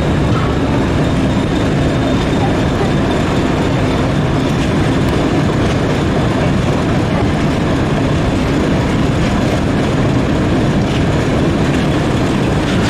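Railway carriage running along the track: a steady rumble of wheels on rail, heard from on board, with a few faint clicks.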